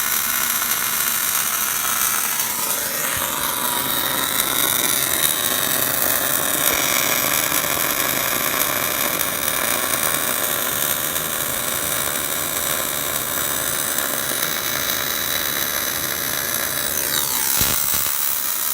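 Steady mechanical noise of a metalworking machine in the boom-root repair, with a few sliding changes in pitch about three seconds in and near the end.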